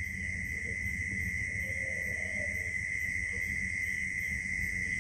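Background noise in a pause between spoken quiz answers: a steady high-pitched whine with a low hum beneath it.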